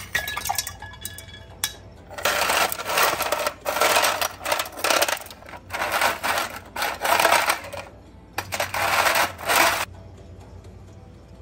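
Ice cubes clinking into a glass pitcher, then a metal scoop digging through ice cubes in a plastic box: four bouts of loud clattering.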